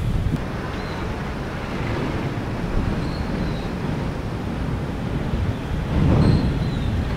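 Wind buffeting the microphone outdoors: a steady low rumble that swells about six seconds in, with a few faint short chirps above it.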